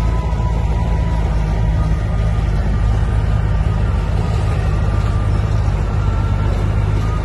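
Heavy diesel engine of earthmoving machinery running steadily under load, a deep even drone.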